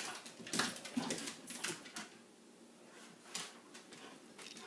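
A pug chasing a laser pointer dot on a hardwood floor: a few short, noisy bursts of the dog's breathing and scrabbling paws. They cluster in the first two seconds, with one more past the middle.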